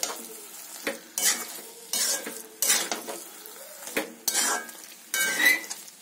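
Slotted metal spatula stirring a thick cabbage and potato curry in a metal kadai, scraping the pan in repeated strokes about once a second, with a low sizzle between strokes.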